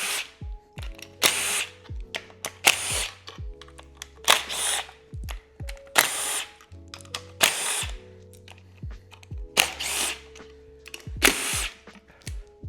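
Background music with a slow beat: deep bass hits that slide down in pitch, and a loud hissing hit about every second and a half over held chord tones.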